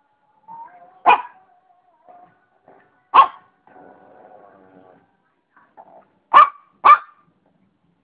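Shih Tzu barking: four sharp barks, one about a second in, one about three seconds in and two in quick succession near the end, with quieter drawn-out vocalising between them.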